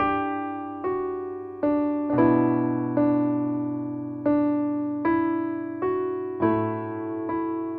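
Slow, gentle piano music: notes and chords struck one after another, a little more than once a second, each ringing and fading before the next.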